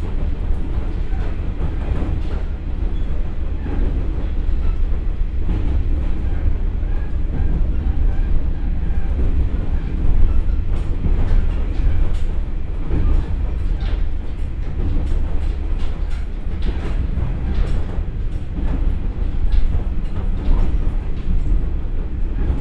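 Cabin running sound of a JR West KiHa 47 diesel railcar with a Komatsu engine and KTF3335A transmission: a steady low rumble of engine and wheels on rail, with scattered clicks and knocks from the track, at about 47 km/h.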